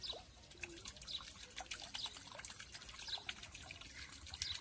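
Cooking oil poured in a thin stream into an iron kadai, trickling and pattering into the oil already in the pan.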